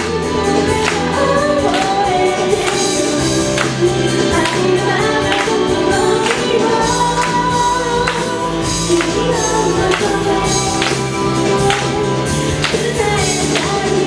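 A woman singing a pop song live into a microphone over an amplified backing track with a steady beat, with the audience clapping along in time.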